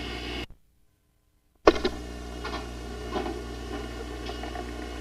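Steady electrical hum and hiss of a home-video recording in a quiet room. About half a second in it cuts to a second of dead silence, then returns with a sharp click, followed by a few faint knocks and taps.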